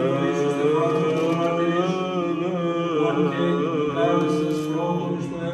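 Greek Orthodox Byzantine chant: a male voice sings an ornamented melody that glides and wavers in pitch over a steady low held note, the ison drone.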